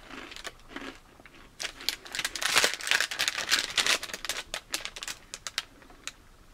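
Crinkly plastic snack bag being handled and squeezed. It crackles densely from about a second and a half in, then thins to scattered crinkles.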